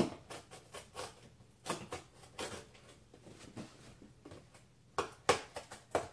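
A letter opener stabbing, scraping and cutting through a corrugated cardboard box: an irregular run of scrapes, crackles and sharp knocks, the loudest at the start and around five seconds in.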